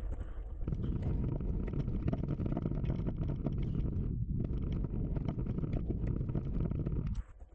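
Wind buffeting the camera microphone while a loaded bikepacking bike rattles and clatters down a rough, rocky singletrack, with a steady run of small knocks. The level drops suddenly near the end.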